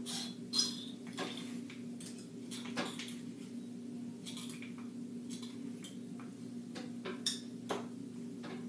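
Scattered light clicks and clinks of a curling iron being handled while hair is curled, over a steady low hum.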